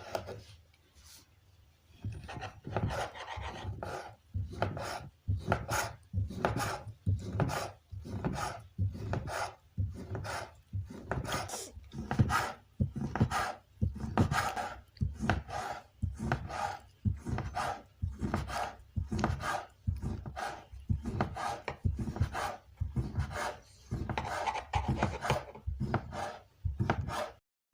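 Egg-noodle dough being worked on a wooden board in steady, even strokes, about two a second, each a short scraping rasp.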